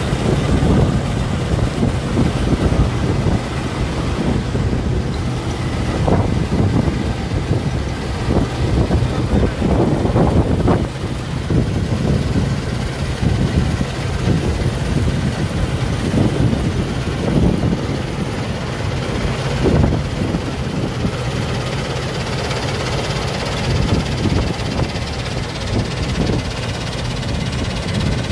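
Engine of harvest machinery running steadily: a low hum with irregular knocks and clatter on top.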